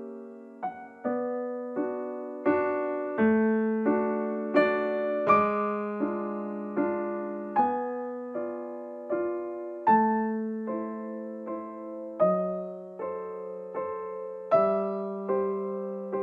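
Background piano music: gentle chords struck at a steady, unhurried pace, each ringing and fading before the next.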